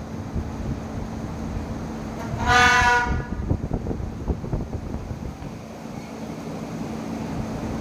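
A single short horn blast, about half a second long, heard over a low, uneven background rumble.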